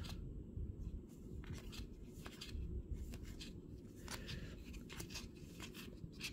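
Baseball trading cards being flipped one by one off the front of a stack into the other hand. Each card gives a faint slide and click, unevenly, about two or three a second, over a low steady background rumble.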